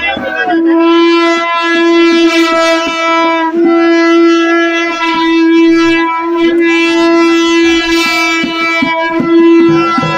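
A wind instrument holding one long, steady, loud note, broken only by brief pauses, with a rhythmic beat under it.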